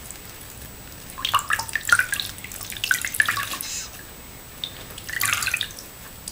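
Water from a soaked Beanie Boo plush toy dripping and trickling into a sink of soapy water as it is wrung out by hand, in a cluster of splashy drips followed by a second shorter spell a little after five seconds in.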